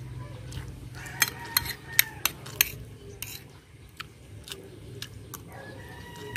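Metal spoon clinking and scraping against a plate while scooping rice, a quick run of sharp clicks between about one and three seconds in, then a few scattered taps.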